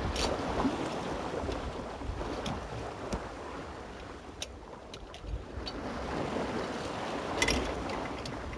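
Water rushing and sloshing along a small sailboat's hull as she sails downwind in a light breeze, with wind on the microphone. The wash swells near the start and again near the end, and there are a few light clicks.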